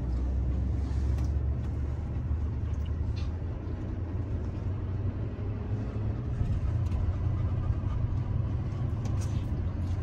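Steady low rumble of a pickup truck driving along, heard from inside the cab.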